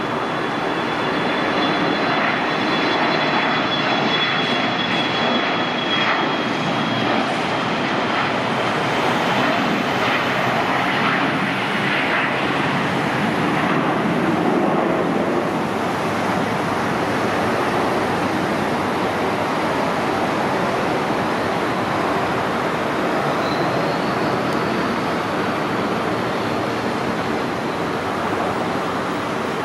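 2007 Bombardier Challenger 300's two Honeywell HTF7000 turbofans at takeoff power: a steady jet roar with a thin high whine over the first several seconds of the takeoff roll. The roar eases off slightly as the jet lifts off and climbs away.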